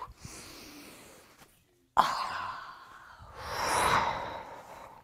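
A woman breathing hard close to the microphone as she works through squats: a sharp breath about two seconds in, then a long, loud exhale about a second later.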